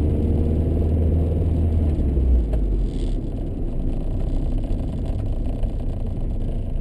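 Honda CRX's 1.6-litre DOHC VTEC four-cylinder engine, fitted with an aftermarket exhaust, running steadily while the car is driven, with road noise, heard from inside the cabin. Its low drone drops away about two and a half seconds in.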